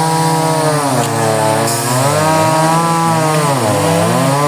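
Chainsaws running and cutting wood, their engine pitch rising and falling as they rev under load, at least two saws overlapping.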